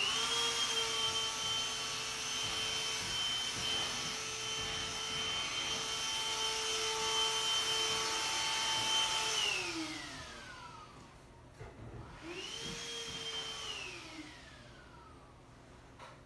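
A small high-speed electric motor, like a household appliance's, runs steadily with a whine and a rushing hiss, winds down about nine and a half seconds in, then starts up again briefly and winds down a second time.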